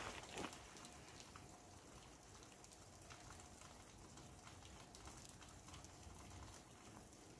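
Near silence: faint scattered ticks and rustles of hands handling a plastic detonator shock tube and its connector, with a faint steady hum that comes in about a third of the way through.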